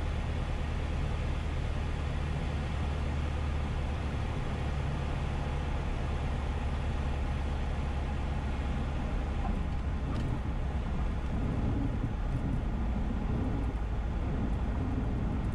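Piper PA-28's piston engine at low power, a steady low drone heard inside the cockpit during the landing roll along the runway.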